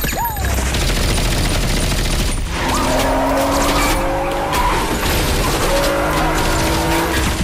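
Rapid gunfire with bullets striking the road, and a BMW Z4 3.0i's straight-six engine revving hard under acceleration. The engine note rises steadily from about a third of the way in.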